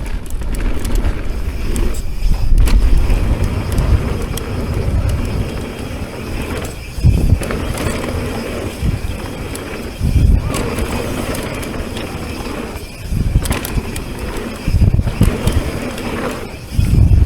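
Mountain bike riding a downhill trail: continuous rolling and rattling noise with wind buffeting the microphone, and several low thumps.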